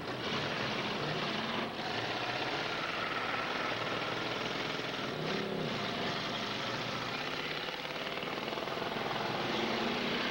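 Demolition derby car engines running hard with a dense, steady mechanical noise; an engine revs up and back down about five seconds in.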